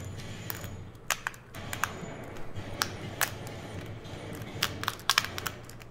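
Scattered light clicks and taps of small tools and laptop parts being handled while a MacBook Air's keyboard and back plate are worked loose. A low steady hum runs underneath.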